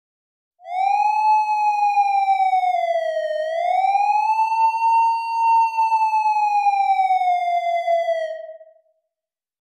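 Police car siren wailing: one tone that slowly rises and falls, dipping about three seconds in, climbing again and then sliding down as it fades out after about eight seconds.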